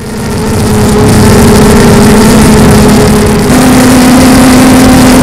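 Quadcopter's electric motors and propellers heard through its onboard camera: a loud, steady whine over a rush of air, its pitch stepping up slightly about three and a half seconds in.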